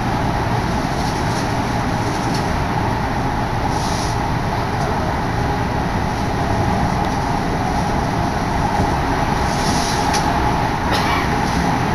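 Steady running noise heard inside a moving Odakyu Odawara Line electric commuter train: a continuous rumble with a constant hum.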